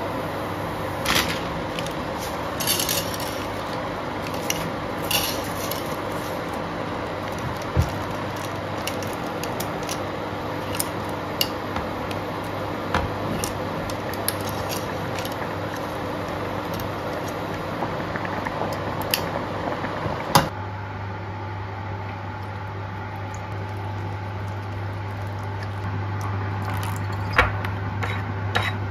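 Water heating and boiling in a stainless steel pot on an induction cooktop, with scattered metal clicks and knocks as salt is shaken in and spaghetti is stirred with metal tongs against the pot. About two-thirds of the way through, this changes abruptly to a metal spoon stirring flour batter in a ceramic bowl, with a steady low hum and a few sharp clinks of the spoon near the end.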